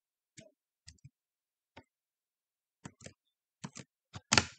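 Short clicks, about ten, unevenly spaced and growing louder, with the loudest and longest one near the end.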